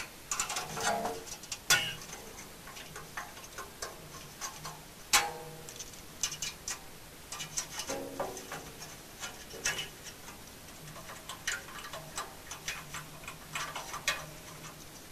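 Steel exhaust springs being worked off a Polaris RZR XP muffler's hangers with a spring puller: scattered metallic clicks and clinks, some with a brief ring, the sharpest click about five seconds in.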